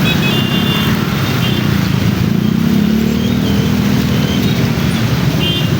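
Traffic noise in a jam: a vehicle engine runs steadily close by, over the general rumble of road traffic. Its pitch rises a little partway through.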